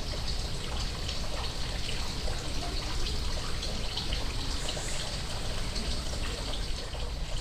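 Steady trickling, splashing running water.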